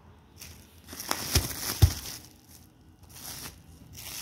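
Plastic bubble wrap crinkling and rustling as a boxed phone is pulled out of it, in a few separate bursts. Two dull knocks stand out about a second and a half in, the loudest sounds here.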